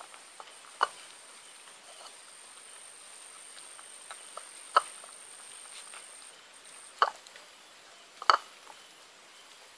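A tabby cat eating wet food from a bowl: short, sharp smacks and clicks of its mouth and tongue as it eats. Four louder ones come about a second in, near the middle, and twice near the end, with fainter ones between.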